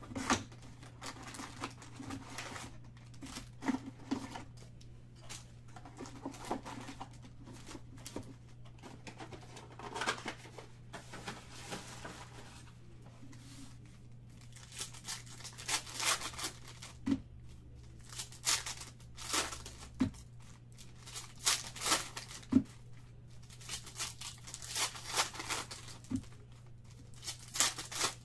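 Foil wrappers of Panini Select basketball card packs being handled, crinkled and torn open by hand, in many short bursts that come thicker and louder in the second half.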